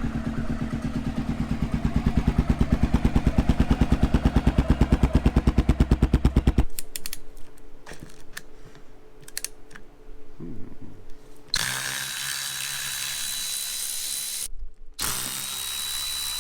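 Honda XR650L single-cylinder engine running through its Big Gun Evo-R muffler, a fast even train of exhaust pulses, cut off abruptly about seven seconds in. Then a few clicks, and from about halfway a steady high whine with hiss from a power tool.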